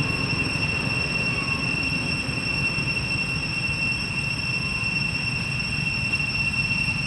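Steady outdoor ambience: an unbroken high-pitched whine over a low rumble, with no distinct events.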